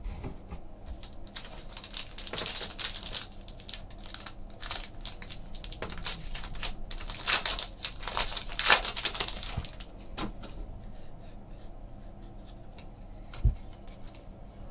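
Foil trading-card pack being torn open and crinkled by hand: a run of crinkling, tearing bursts that dies down after about ten seconds.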